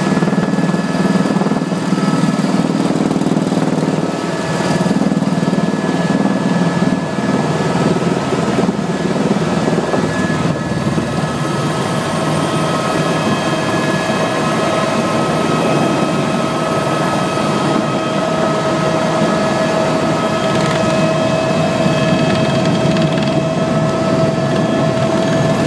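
Helicopter turbine engine and rotor running, heard from inside the cabin: a loud, steady, dense drone with several steady whining tones over it. A high thin whine comes in about halfway through and holds.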